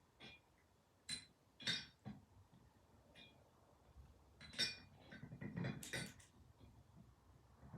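Scattered metallic clinks and knocks of a crescent wrench working the bolt that holds a vise's base housing, the bolt being snugged up rather than torqued down. A handful of separate clicks, with a louder run of clinks about four and a half to six seconds in.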